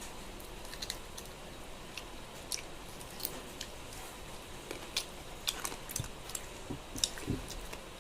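A person chewing a mouthful of pork and rice close to the microphone, with many small, irregular wet clicks and smacks of the mouth.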